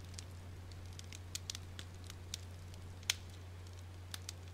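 Faint crackling of a log fire in a fireplace: irregular small pops and clicks over a low steady hum.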